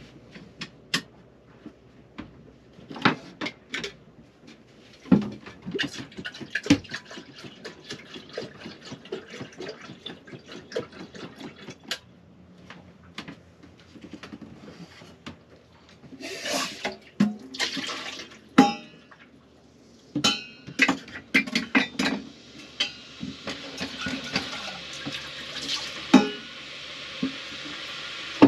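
Cups, pots and utensils clinking and knocking as they are handled in a small boat's galley, with a short run of pouring or splashing water about halfway through. Near the end a steady hiss sets in and keeps building.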